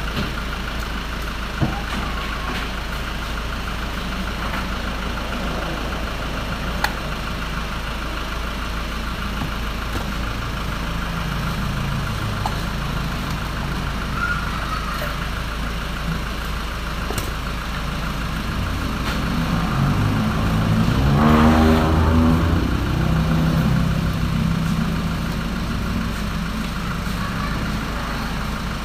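Steady engine running in the background, with an engine rising and then falling in pitch, loudest about twenty seconds in. Two sharp clicks come in the first seven seconds.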